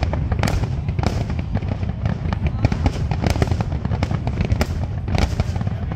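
Large aerial fireworks display: many overlapping bangs and pops in quick succession over a continuous low rumble of shells bursting.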